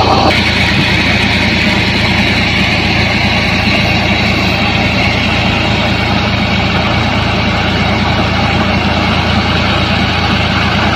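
Fiat 480 tractor's three-cylinder diesel engine running steadily under load, driving a tubewell pump by belt from its pulley, with a steady rush of flowing irrigation water over it.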